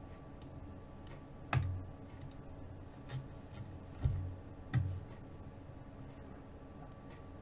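Scattered sharp clicks, each louder one carrying a low knock, four of them spread through the middle few seconds, over a steady low room hum.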